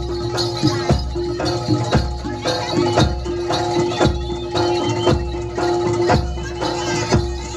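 Live East Javanese jaranan music from a gamelan-style ensemble: heavy drum beats about once a second, jingling and mallet percussion, and a steady held tone over them.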